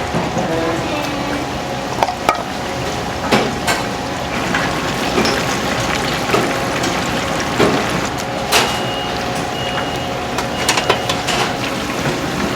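Restaurant kitchen noise: a steady machine hum under a wash of running water, with scattered knocks and clatter of utensils and dishes. Three short, high electronic beeps come about two-thirds of the way through.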